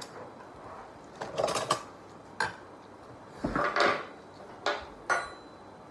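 Chopsticks and spoons clinking and tapping against ceramic bowls and dishes during a meal: a handful of short separate clatters and clicks.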